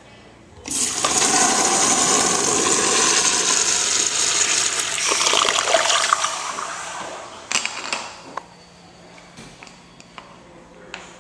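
Crane Plumbing urinal flushing: a loud rush of water that starts suddenly, with a faint whistle in it, and dies away after about six seconds. A few sharp clicks follow near the end of the flush.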